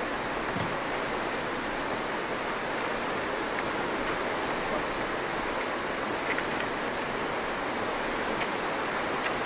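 Steady rush of a fast-flowing river's current running past the bank.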